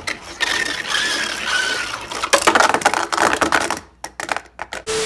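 A Beyblade Burst top, Kolossal Helios, spinning in a plastic stadium, its tip scraping and rattling across the stadium floor for about three and a half seconds, then a few separate clicks as it knocks about.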